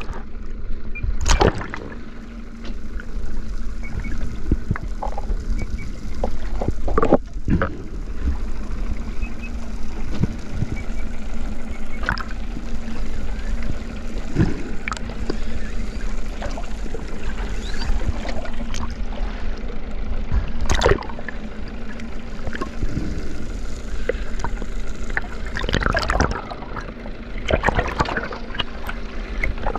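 Water sloshing and splashing around a small open boat, with scattered knocks and a faint steady low hum underneath.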